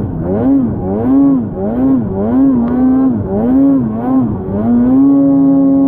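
2024 Polaris 9R Khaos snowmobile's two-stroke engine with a chambered muffler, revving up and down about twice a second as the throttle is worked in deep snow, then held steady at high revs near the end.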